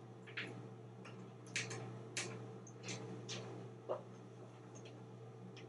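African grey parrot's beak nibbling and chewing on wooden door trim: faint, scattered sharp clicks, about six over five seconds, with no steady rhythm.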